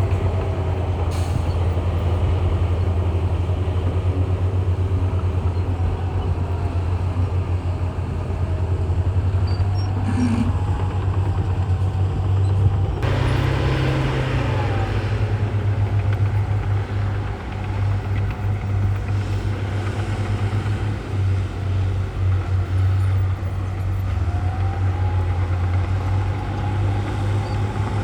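Heavy diesel earthmoving machinery running steadily with a deep engine rumble and a faint whine that rises and falls in pitch. About halfway through, a loud hiss lasts about two seconds.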